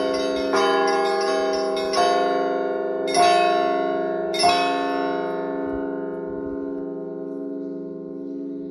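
Russian Orthodox church bells rung by a bell-ringer: a few more strokes on the smaller bells over the first four and a half seconds, the last two the loudest, over the steady hum of the larger bells. The ringing then stops and the bells are left to ring out and slowly fade.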